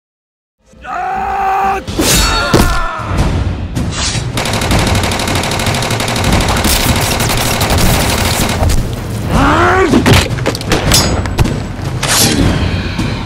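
Dubbed fight sound effects: a short cry about a second in, then rapid gunfire, heavy thuds and blows, and a groan about ten seconds in.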